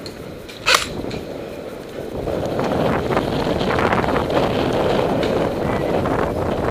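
A single sharp snap about 0.7 s in, then from about two seconds on a louder rough rumble with small crackles, typical of wind and rubbing on a body-worn camera's microphone.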